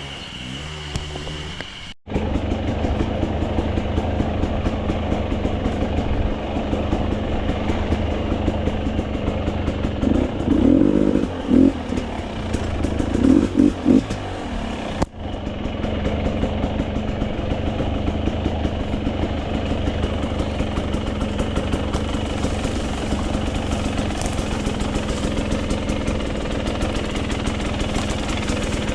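Off-road dirt bike engine running under way, with a few sharp bursts of throttle and some clatter. The sound cuts out for an instant twice.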